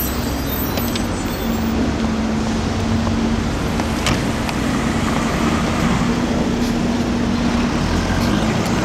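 City street traffic: cars driving past, with a steady low engine hum through most of it and a sharp click about four seconds in.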